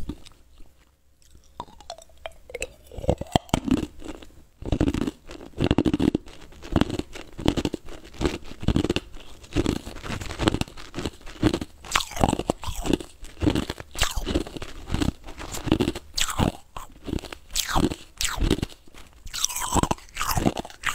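Ice cubes being bitten and crunched between the teeth, right at a wired earphone's in-line microphone: after a quiet first two seconds, a close, steady run of sharp crunches, several a second.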